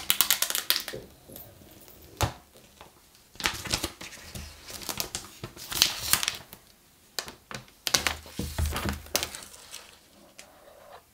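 Clear plastic shrink-wrap on a phone box being torn open at its pull tab and peeled off, crinkling and crackling in irregular bursts with short pauses between.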